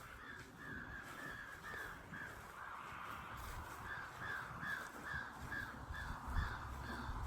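A bird calling over and over in a steady series of short, slightly falling calls, about two or three a second.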